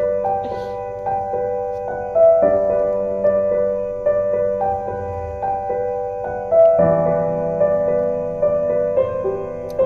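Background music: a slow melody of held keyboard notes, a new note about every second, with a lower bass part joining about seven seconds in.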